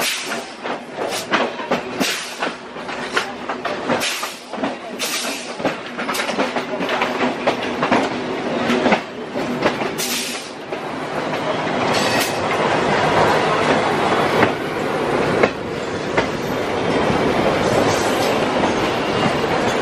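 Train wheels clattering over rail joints, with sharp clicks coming thick and fast for about the first ten seconds, as a local train rolls out beside a passing train of passenger coaches. From about twelve seconds in the sound turns to a steadier, louder rolling rumble.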